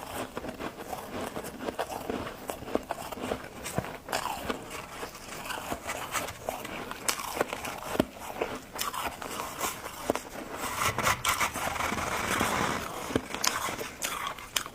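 Freezer frost ice being bitten and chewed close to the microphone: a run of sharp crunches and crackles, densest and loudest a little past two-thirds of the way through.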